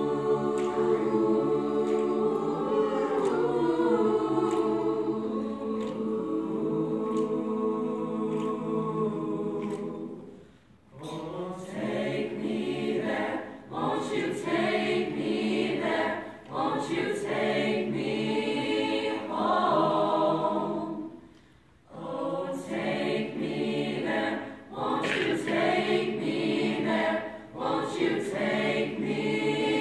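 Mixed-voice a cappella choir singing in harmony, with no instruments. Long held chords for about the first ten seconds, a brief pause, then shorter, more rhythmic phrases with another short break about two-thirds of the way through.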